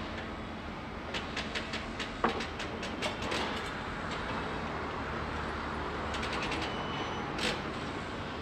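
Construction-site ambience: a steady low rumble of heavy machinery under groups of short sharp metallic clicks and clanks, with one louder knock about two seconds in.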